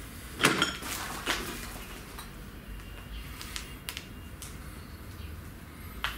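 Metal clinks and knocks as an electric drill and its bit are handled around a steel sprocket clamped in a vise. The loudest, slightly ringing knock comes about half a second in, with another just after a second and a few lighter clicks later. The drill motor is not running.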